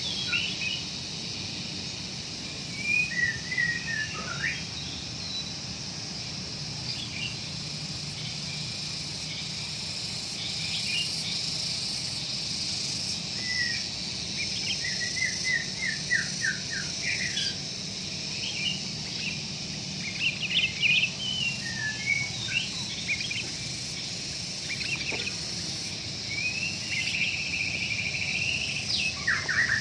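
Sooty-headed bulbul (kutilang) calling in short, scattered chirps and trills over a steady high insect buzz.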